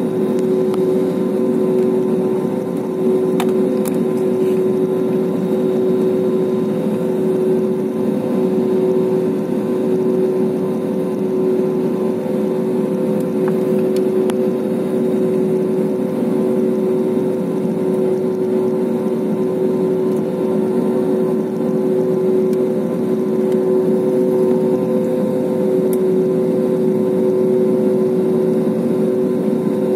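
Jet airliner's engines at idle while taxiing, heard from inside the passenger cabin as a steady drone with two steady hum notes that do not change in pitch.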